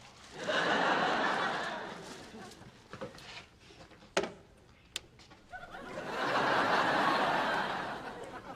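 Studio audience laughing in two swells, each a few seconds long, with a few small knocks in the pause between them.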